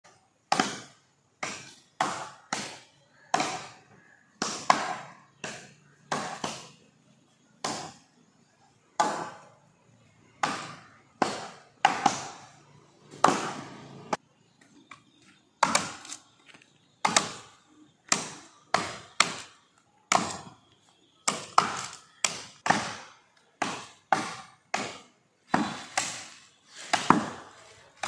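Axe blows chopping into the trunk of a dead, dry coconut palm: a long run of sharp, separate thwacks, one to two a second in an uneven rhythm, as two men strike in turn.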